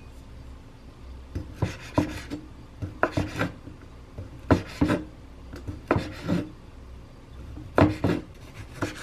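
A knife working on a wooden cutting board: irregular knocks mixed with scraping and rubbing as food is cut and moved about.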